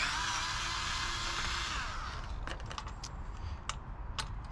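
Cordless electric screwdriver running for about two seconds as it backs a Phillips screw out of the chain guard, winding down, then a few light clicks.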